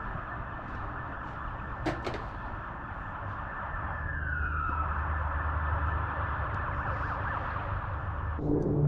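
An emergency-vehicle siren wails over a steady rushing noise, its tone falling about halfway through. A low hum comes in around the same point.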